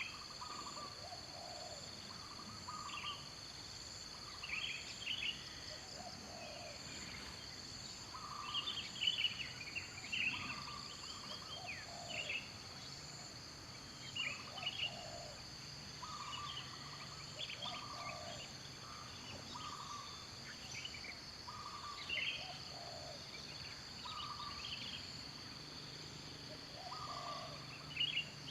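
Short bird calls repeating every second or two, over a steady high-pitched insect drone.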